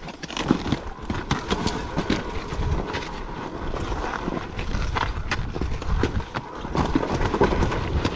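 A dirt bike rolling down a steep, rocky trail: irregular knocking and clattering as the tyres and suspension bang over rocks, over a low rumble.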